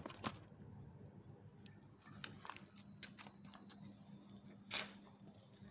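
Faint handling noise as a kitten is held on a wooden bench: scattered soft clicks and rustles, with one louder rustle near the end, over a faint steady hum.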